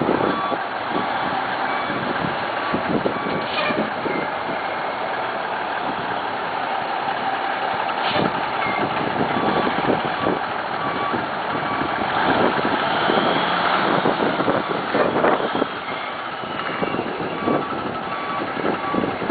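Dump truck's diesel engine running while its backup alarm beeps in a steady repeating rhythm. The beeping stops about two-thirds of the way through, and the engine keeps running.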